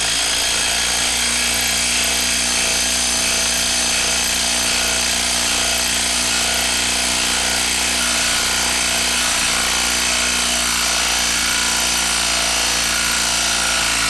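Hilti SID 4-A22 cordless brushless impact driver hammering without a break as it drives a 4-inch lag screw into a wooden log through a socket adapter. The impacts run steady and even, the anvil barely skipping, and stop suddenly at the end when the screw is home.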